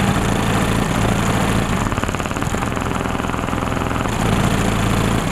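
A Jeep's car-audio system with three DC Audio 18-inch subwoofers plays bass-heavy music at competition volume. The bass is loud enough that it comes through heavily distorted.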